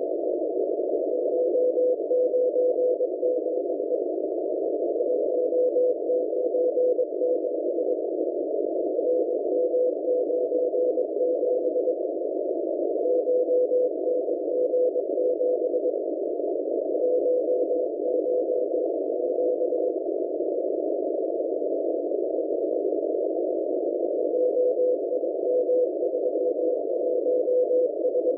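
Morse code numbers from the M01 numbers station as heard on a shortwave receiver: a single mid-pitched tone keyed in groups of dots and dashes over a steady hiss of radio noise, with a longer pause a little past two-thirds of the way through.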